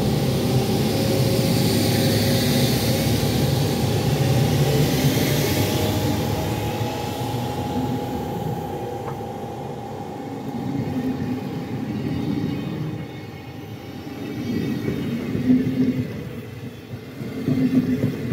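ÖBB class 1144 electric locomotive with City Shuttle coaches running on the track: rail rumble under a steady whine from its cooling blowers, the loud fan noise behind its 'Alpenstaubsauger' (alpine vacuum cleaner) nickname. The sound grows quieter over the first half, then swells unevenly near the end.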